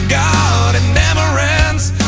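A rock song: a singing voice carries a melody over a steady bass line and drum hits.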